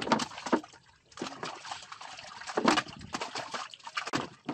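Irregular water splashes and sloshing from a drag net crowded with small fish, as hands scoop through the fish in shallow water.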